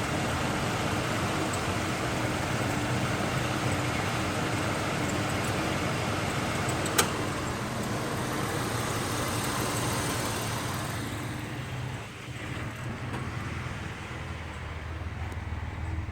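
Parked truck's engine running steadily, with one sharp click about seven seconds in; the sound turns quieter and duller after about eleven seconds.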